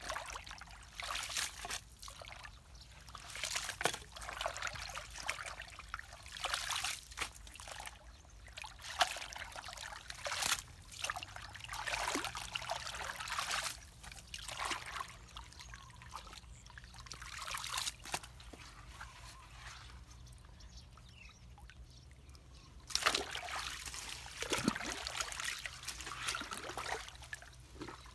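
Muddy water trickling and sloshing at the mouth of a culvert pipe, broken by irregular splashes from boots and gloved hands working in the shallow water.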